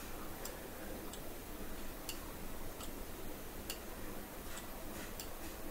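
Faint sharp ticks, roughly one every second, over low room hiss.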